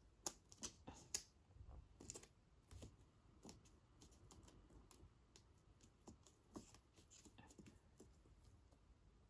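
Quiet, irregular light taps and rustles of fingertips pressing a dry leaf into wet filler on a canvas, a quick cluster in the first two seconds and sparser ones after.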